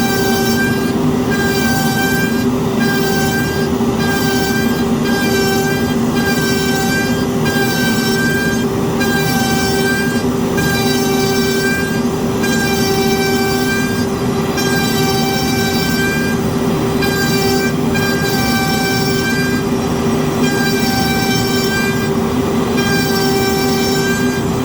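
Root CNC router cutting with a 6 mm up-down compound flute bit at a deep cut, over the steady drone of a large industrial dust extractor. The steady pitch runs without pause, while a higher whine swells and breaks about once a second as the tool works back and forth.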